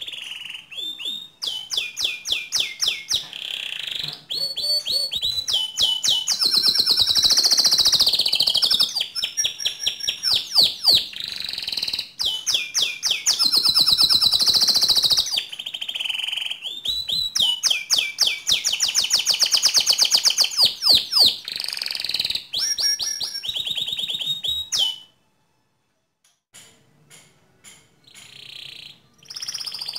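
Domestic canary singing a long, almost unbroken song of fast trills and rolls, mostly high-pitched. The song stops briefly about 25 seconds in, then resumes with a few faint notes before picking up again near the end.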